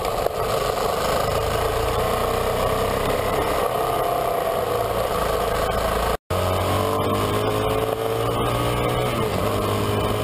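Honda CRF450L's single-cylinder four-stroke engine running under way on a dirt road, its pitch rising and falling slightly with the throttle. The sound breaks off for an instant about six seconds in.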